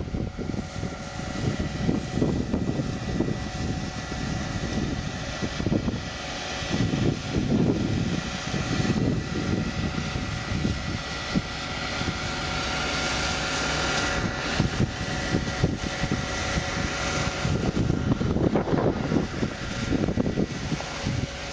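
An engine running steadily at an even pitch, with wind buffeting the microphone in gusts.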